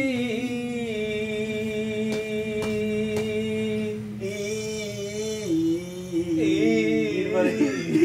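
A man singing a Bengali folk song unaccompanied. He holds one long note for about five seconds, then steps down through a few shorter, lower notes near the end.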